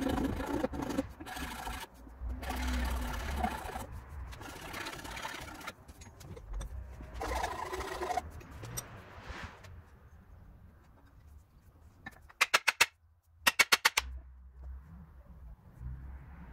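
A hand file rasping across a wooden axe handle in long back-and-forth strokes, about one every one and a half to two seconds, shaping and cleaning the wood. About 12 seconds in come two brief, loud bursts of rapid clicking.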